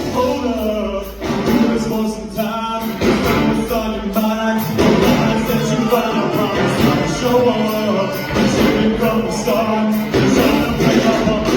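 Rock music with a singing voice over guitar and drums.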